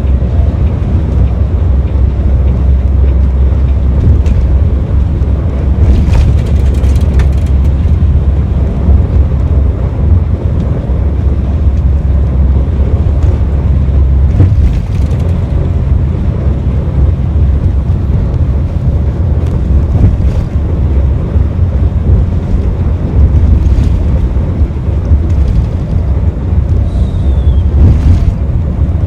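Moving bus: a loud, steady low rumble of engine and road noise, with wind buffeting the microphone.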